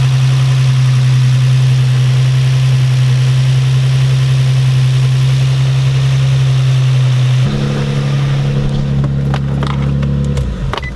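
Infiniti G35's 3.5-litre V6 idling steadily with an intermittent knock that the owner fears is rod knock from running low on oil. The engine note changes about seven and a half seconds in, a few sharp clicks follow, and the engine is shut off near the end.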